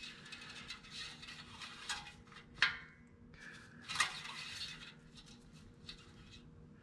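Engine oil dipstick being wiped and slid back into and out of its tube: light metallic rattles and scrapes, with two sharp clicks about two and a half and four seconds in.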